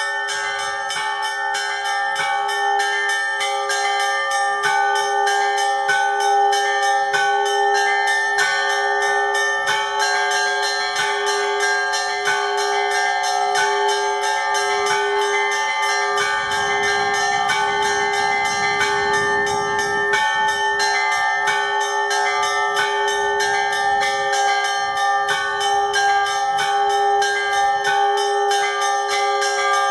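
Orthodox church bells ringing in a continuous peal: small bells struck in a quick, even pattern over the sustained ring of larger bells.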